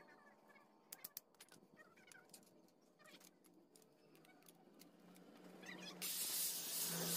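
A few light clicks of steel being handled about a second in. Near the end an angle grinder starts up with a loud, steady hiss as it begins grinding the steel machete blade.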